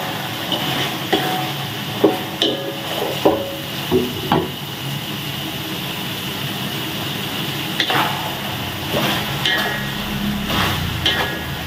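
Wooden spatula stirring and scraping food in a metal wok, with sharp clacks as it knocks the pan, over a steady sizzle of frying chicken and vegetables. The clacks come in clusters over the first few seconds and again after about eight seconds, with a smoother sizzle between.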